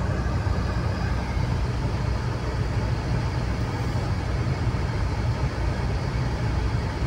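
Steady low rumble of a car driving at highway speed, heard from inside the cabin: engine at about 2,000 rpm mixed with tyre and road noise.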